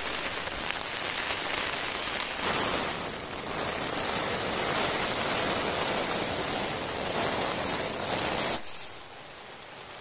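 Heavy rain falling on a tent, heard from inside as a steady hiss; near the end it suddenly drops to a quieter level.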